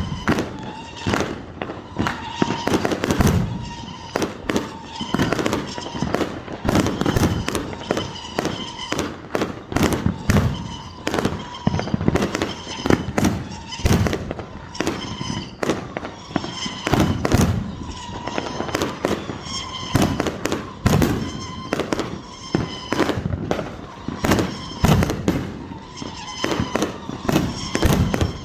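Fireworks going off in rapid succession: a dense, unbroken run of sharp bangs and crackles, several a second.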